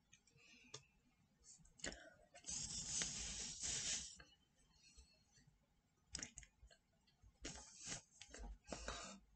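Soft rustling of hands brushing against each other and against a cotton T-shirt during sign language, with scattered small clicks. The longest, loudest rustle comes about two and a half seconds in and lasts over a second; shorter ones follow near the end.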